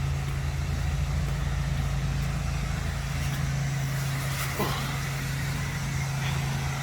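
An engine idling with a steady low hum, and a brief falling squeak about four and a half seconds in.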